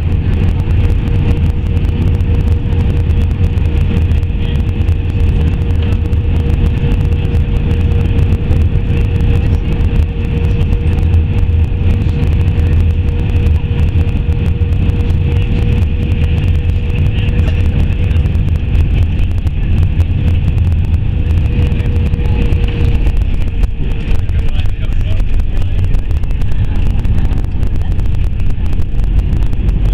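Airbus A320 cabin noise on final approach: a loud, steady rumble of engines and rushing air with a steady engine whine. The whine fades about 24 seconds in, around touchdown, and by the end the wing spoilers are up on the runway.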